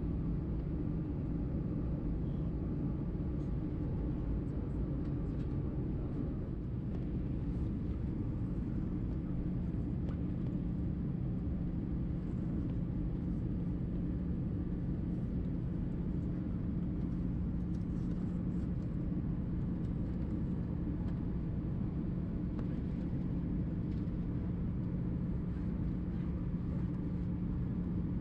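Airbus A320 cabin noise: a steady rumble of the jet engines and airflow, with a low steady hum that grows stronger about nine seconds in.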